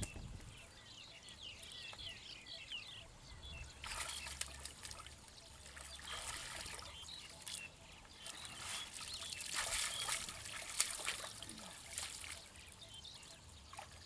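Shallow muddy water splashing, sloshing and trickling on and off as people wade and grope by hand for fish in a drained pond.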